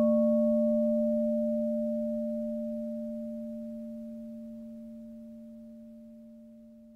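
A single low bell-like tone, struck once and left to ring, fading away slowly and evenly over about seven seconds; a higher overtone dies out within the first second.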